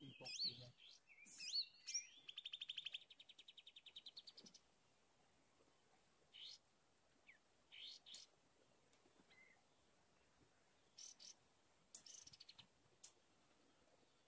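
Forest birds calling: a few quick whistled notes, then a rapid, evenly pulsed trill lasting about two and a half seconds, followed by scattered short chirps.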